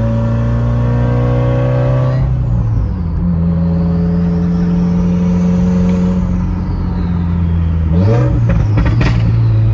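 Subaru WRX's turbocharged flat-four, heard from inside the cabin while driving, running with an open downpipe and no catback connected. The engine note climbs, eases off about two seconds in, holds steady under load, then rises again about eight seconds in as the car accelerates. A faint high whine rises and falls in the middle.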